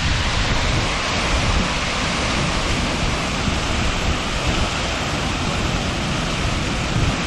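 Steady rushing noise, with wind buffeting the microphone in an uneven low rumble.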